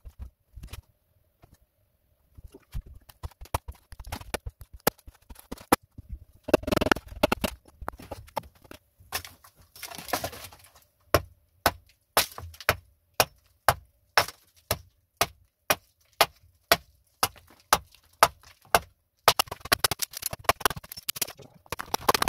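Axe chopping into a standing log, hewing one side flat: a long run of sharp chops at about two a second, with a few denser, noisier stretches of quicker blows and splintering wood.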